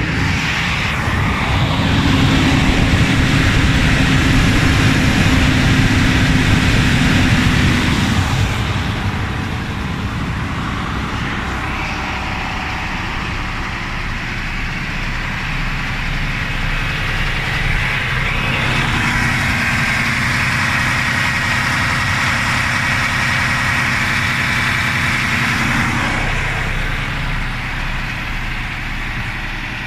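DAF XF 510's PACCAR MX-13 straight-six diesel engine idling with a steady hum and a faint whine. It runs louder for the first several seconds, then drops back about eight seconds in and stays even.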